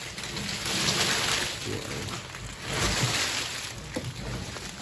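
Hundreds of cardboard matchbooks spilling and sliding out of a tin, a dense rustling pour that comes in waves, loudest about a second in and again about three seconds in.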